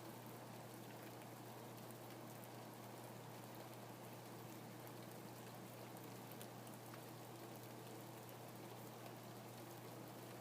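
Rain falling steadily, an even patter of many small drops, with a low steady hum underneath.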